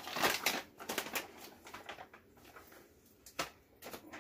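A quick run of light clicks and taps in the first second or so, then a few single knocks.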